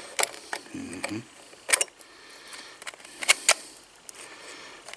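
Small sharp metal clicks and taps from the chrome head and lens assembly of a 1960s flashlight being handled and fitted together. The loudest click comes about a second and a half in, and two more come close together just after three seconds.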